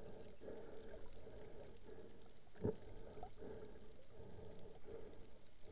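Low, irregular water noise picked up underwater, with one sharp knock about two and a half seconds in.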